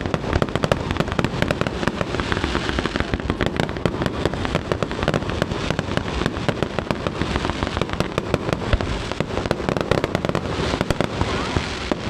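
Fireworks display going off in a rapid, unbroken barrage of bangs and crackles, many shells bursting at once.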